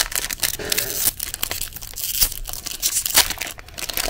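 Wrapper of a baseball trading-card pack crinkling and tearing as it is ripped open by hand, a dense run of irregular crackles.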